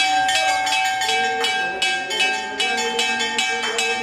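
Temple bell rung repeatedly during an aarti, about three strikes a second, its metallic tone ringing on steadily between strikes.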